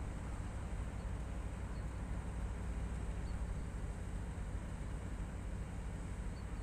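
Class 56 diesel locomotive's 16-cylinder Ruston-Paxman engine running with a steady low drone, with light hiss over it.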